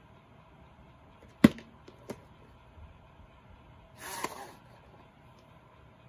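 A VHS cassette in its cardboard sleeve being handled: a sharp knock about a second and a half in, a lighter click, then about half a second of scraping as the plastic cassette slides out of the cardboard sleeve.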